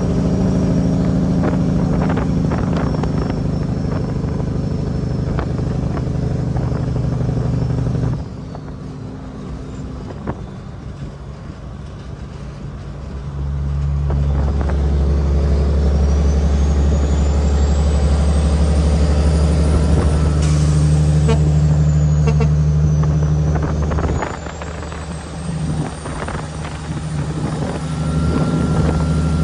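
Cat 6NZ (3406E) diesel engine of a heavily loaded Kenworth W900L truck running under load. The engine note drops away about eight seconds in, comes back strong about five seconds later, and eases off again for a few seconds near the end.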